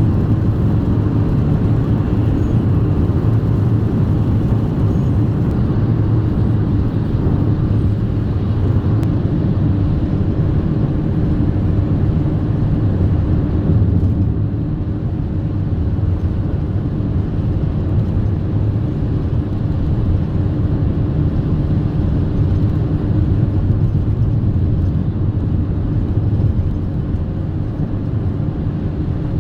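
Car driving: a steady low engine and road rumble, easing slightly about halfway through.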